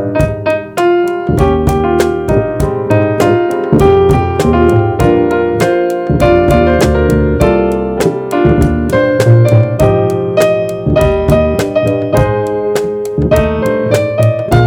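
Jazz trio playing: keyboard carrying the lead with bass and drums keeping time, and a steady tick about three times a second in the high end.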